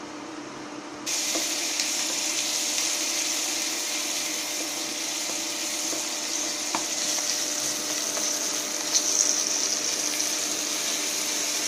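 Sliced onions frying in oil in a non-stick pan, a steady sizzle that starts abruptly about a second in, with a few light clicks of a spatula stirring them; the onions are softening and just starting to brown. A steady low hum runs underneath.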